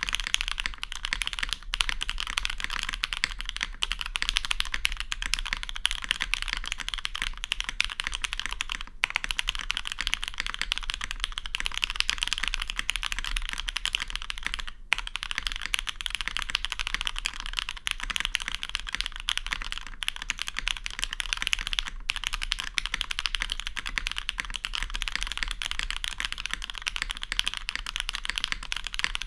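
Fast, continuous typing on a custom mechanical keyboard with diamond-polished, lubed Hyperglide Cherry MX Black linear switches and GMK keycaps, the keystrokes clacking in a dense stream with brief pauses about nine and fifteen seconds in. A steady low hum sits underneath.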